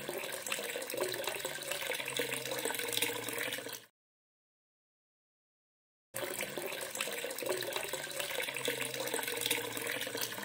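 Liquid pouring with a steady, tap-like running hiss in two spells: one of about four seconds, then dead silence for about two seconds, then a second of about five seconds. It goes with wet cement slurry being poured from a small tin cup.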